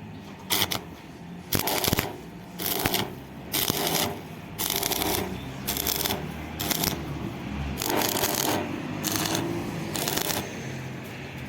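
Electric arc welding in about ten short bursts, each under a second, as tack welds or short beads are laid on the steel hinge and door frame.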